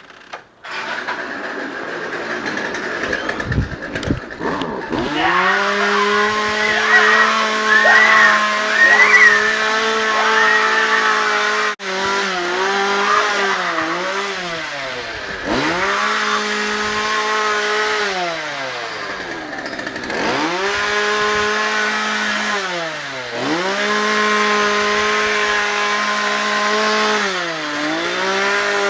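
Two-stroke chainsaw held at full throttle and screaming. It is let off and opened up again several times, each time dipping in pitch and climbing back. A wavering high-pitched sound rises over it briefly about seven to nine seconds in.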